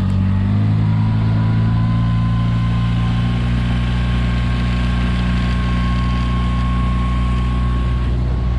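Tohatsu 20 hp tiller outboard motor pushing an inflatable boat along at a steady speed, heard from aboard close to the engine, a steady drone with a faint whine above it.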